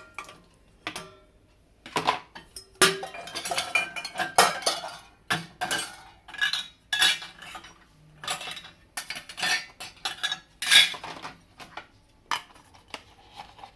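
Metal utensils and dishes clinking and clattering irregularly as they are handled in a dishwasher's racks, with a couple of louder clanks.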